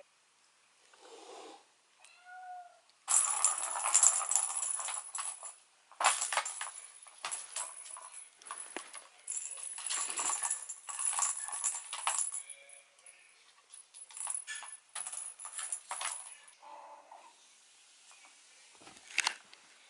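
Kitten batting at a plastic circular track ball toy: rapid rattling and clicking of the ball running round the plastic track, in spells of a few seconds with short pauses. A short meow comes about two seconds in.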